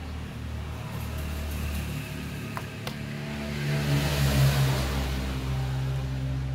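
A motor vehicle's engine running steadily with a hiss over it, growing louder to a peak about four seconds in and then easing off, as a vehicle passing by would.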